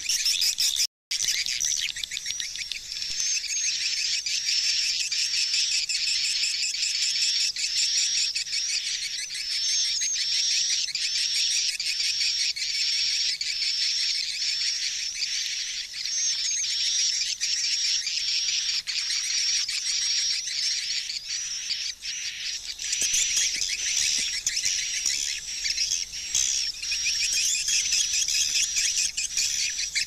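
Swiftlets chirping: a dense, continuous high twittering of many calls, with a short break about a second in.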